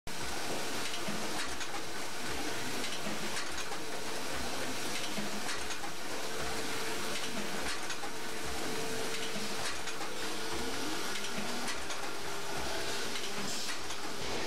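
Catheter funnel assembly machine running: a steady mechanical hiss and hum with a faint steady tone, broken by clicks and knocks every second or so at uneven intervals as its parts cycle.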